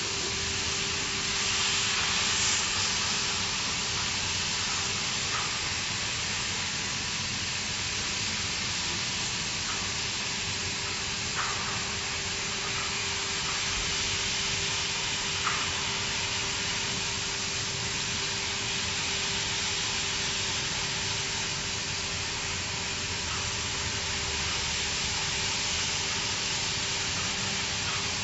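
Plasma cutting torch on a CNC gantry cutting machine, cutting through steel plate: a steady hiss with a constant low tone beneath it and a few faint ticks.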